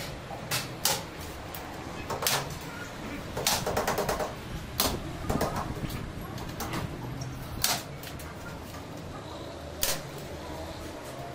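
Hand crimping tool snapping shut on metal corner bead fitted to plasterboard, fixing the bead to the board edge: sharp metallic clacks at irregular intervals, one every second or two, with a quick run of several near the middle.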